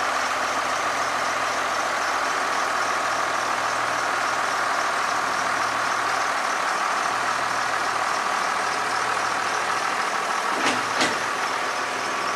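Tractor engine running steadily at a low, even speed. Two short sharp clicks come shortly before the end.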